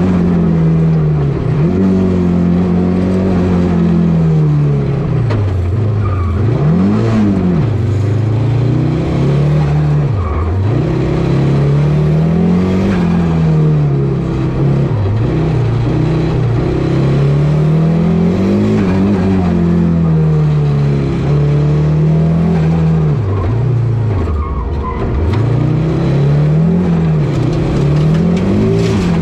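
Audi Quattro A2 rally car's turbocharged five-cylinder engine, heard from inside the cabin, revving up hard and dropping back again and again as the car accelerates, lifts and shifts gear at speed.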